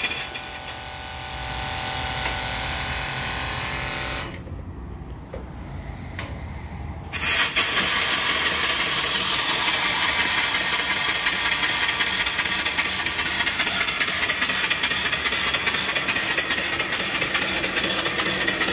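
A small electric water pump hums for about four seconds. After a few quieter seconds a single-cylinder mill steam engine comes in suddenly, running loudly and steadily with a hissing noise as it drives its belted alternator.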